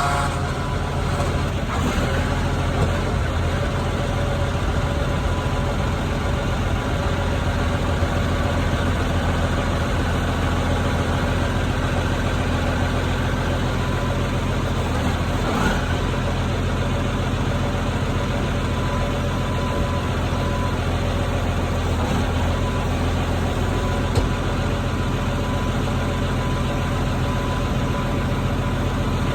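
Case 2294 tractor's six-cylinder diesel engine running steadily at low speed, with a couple of faint clicks partway through.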